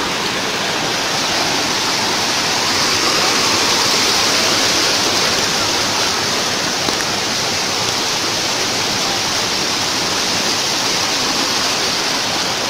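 A waterfall cascading over broad, shallow rock ledges: a steady, close rush of splashing water.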